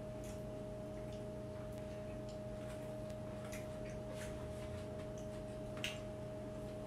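Quiet sounds of eating at a table: scattered soft clicks and taps, with a sharper click about six seconds in, over a steady low hum.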